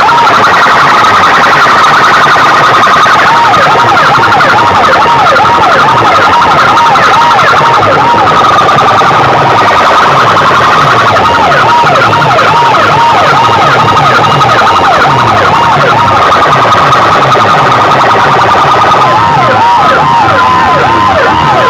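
Massed horn loudspeakers of a competition sound rig blaring a fast-warbling siren tone at full volume, about three swoops a second. The warble drops out twice and comes back, over a steady higher tone and a low pulsing rhythm.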